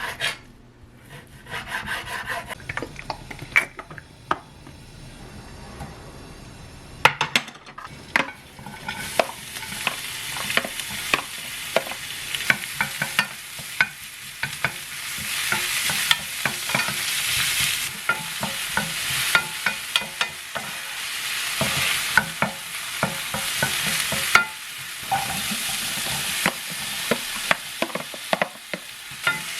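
Food frying and sizzling in a pan while it is stirred, the utensil clicking and scraping against the pan. For about the first eight seconds there are only scattered taps and clicks; then the sizzle starts and runs on steadily.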